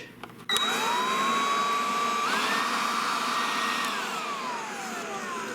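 SnapFresh 20-volt cordless leaf blower switched on, its electric motor whine climbing as it spins up over a steady rush of air. A little after two seconds in it steps up to the higher of its two speeds, and toward the end the motor winds down with a long falling whine.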